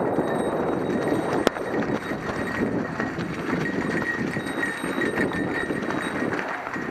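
Mountain bike rolling over a rough trail: tyres crunching over stones and the bike rattling in a dense, irregular patter, with one sharp click about a second and a half in.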